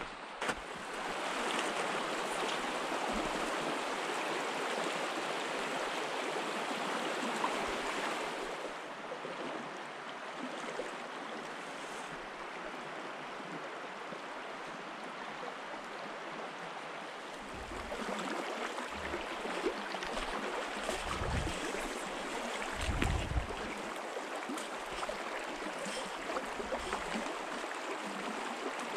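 Shallow winter trout stream flowing over its rocky bed, a steady rush of running water. In the second half a few low thumps come in.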